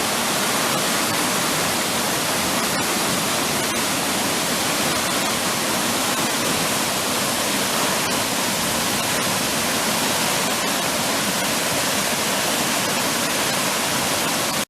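A waterfall running in full flow: a loud, steady rush of falling water.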